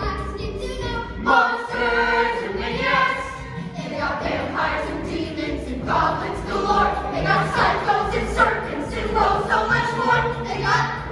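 A youth ensemble singing a musical-theatre number together in chorus over instrumental accompaniment.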